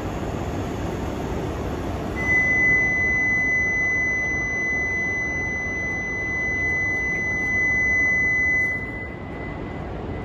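A platform departure buzzer sounds one steady high tone for about seven seconds, starting about two seconds in and cutting off suddenly, signalling the coupled E5/E6 shinkansen's departure. Beneath it runs the steady rushing hum of the train standing at the platform.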